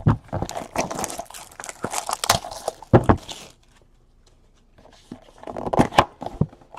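Trading card pack wrapper being torn open and crinkled, a rustling, crackly stretch of about three seconds, followed by a short pause and softer handling of the cards.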